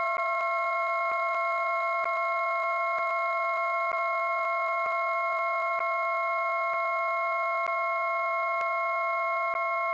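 A loud, steady drone of several stacked electronic tones, with faint irregular clicks scattered through it.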